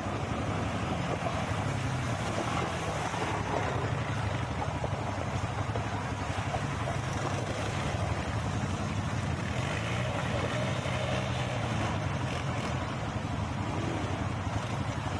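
Several quad bikes (ATVs) running through shallow floodwater, their engines rising and falling in pitch as they rev, with water splashing from the wheels.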